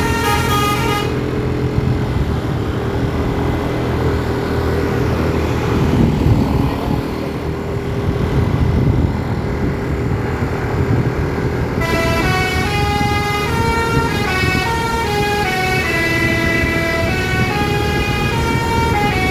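A bus's basuri ('telolet') musical horn playing a tune of stepped notes, heard for about the first second and again from about two-thirds of the way in. The bus engine drones steadily underneath throughout.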